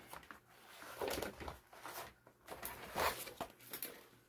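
Faint rustling and handling noises, a few soft scrapes and shuffles about a second apart, as a diamond painting canvas is lifted and moved over a picture frame on a table.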